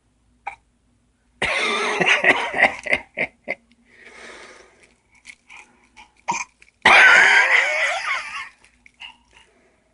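A young child with the hiccups: several short, sharp hiccups, between two louder and longer breathy vocal outbursts.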